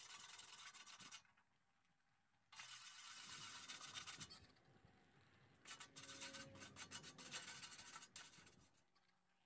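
Hand wire brush scrubbing rust off the end of a tractor radiator's metal bottom tank, a faint scratching in three bouts of quick back-and-forth strokes with short pauses between. The metal is being cleaned for soldering.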